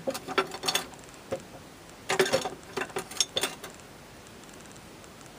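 Small plastic makeup containers clicking and clattering as they are handled and sorted through: a short burst of clicks at the start and a longer run of rapid clicks from about two seconds in.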